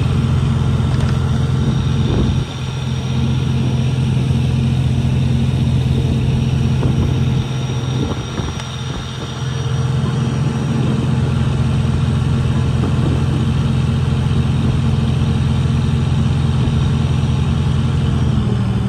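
Steady low engine drone aboard a small car ferry under way. It eases off briefly about two seconds in and again around eight seconds.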